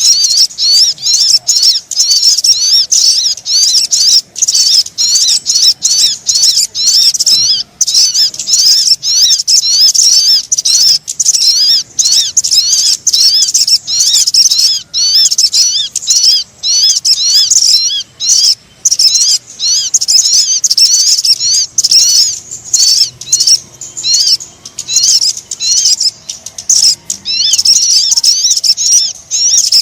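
Sogon bird lure call: a fast, continuous stream of high, looping chirps, several a second, broken only by brief gaps.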